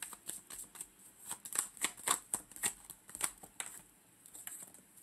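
A deck of oracle cards being shuffled by hand: a quick, irregular run of card flicks and snaps that thins out about three and a half seconds in.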